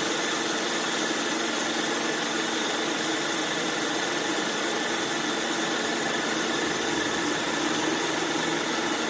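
Bandsaw machine running steadily, a constant machine noise with a steady hum that doesn't change.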